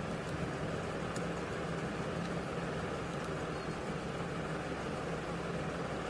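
Steady background noise: a constant low hum under an even hiss, with a few faint clicks.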